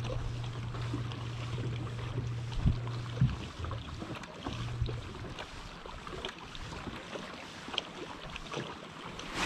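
Electric bow-mounted trolling motor humming steadily, cutting out about five seconds in, over wind and water noise with a few light knocks against the boat.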